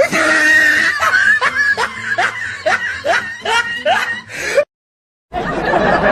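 Comedy snickering-laugh sound effect: a run of about eight quick, rising snickers, cut off suddenly near the middle. After a short dead gap a different clip begins, a dense steady noise.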